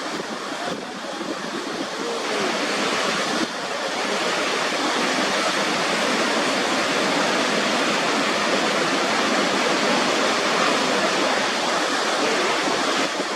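Waterfall: a steady, dense rush of falling water, a little louder and fuller from about three and a half seconds in.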